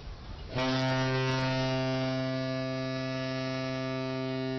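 A ship's horn giving one long, steady, low blast that starts about half a second in.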